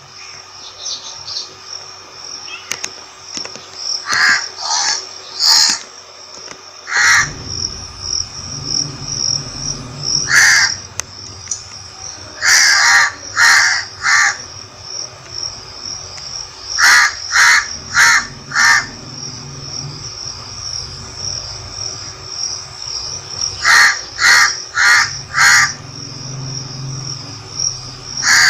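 Crows cawing in runs of one to five harsh caws, spaced a few seconds apart, over a steady high-pitched drone of insects.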